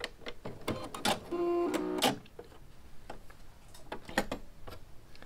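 Domestic sewing machine whirring briefly for about a second as the seam is locked off and the thread cut, with light clicks of the mechanism and handling around it.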